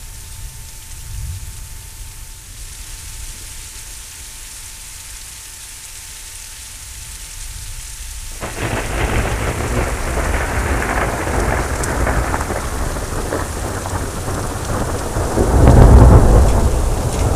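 Thunderstorm: rain falling with low rumbling thunder, then a sudden loud crackling thunderclap about halfway in that rolls on, with a deep heavy rumble at its loudest near the end.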